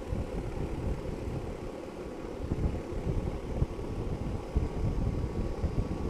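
Outdoor air-conditioner condenser unit running just after start-up, its compressor and condenser fan motor making a low, uneven running noise. It is now starting and running on its newly replaced run capacitor.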